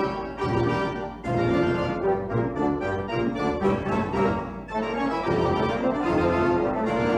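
Instrumental background music of held, organ-like keyboard chords that change every second or so.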